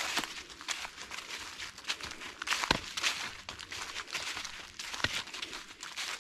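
A hiker's footsteps crunching on the dirt and leaf litter of a forest trail, a step roughly every half second.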